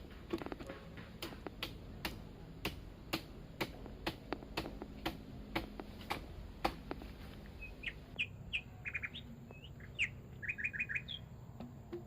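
Sharp clicks or knocks about twice a second for the first seven seconds, then birds chirping in short, quick runs of notes.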